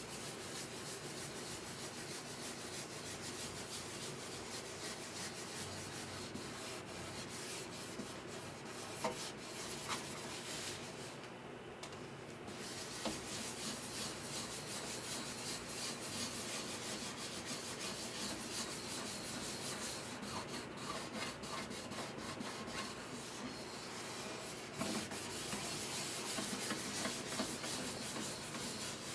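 Continuous back-and-forth hand rubbing on the wood of a guitar under repair, a steady scratchy hiss of quick strokes that drops out briefly about eleven seconds in.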